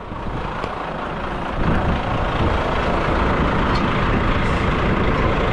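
Heavy truck engine running steadily, getting louder about one and a half seconds in and then holding.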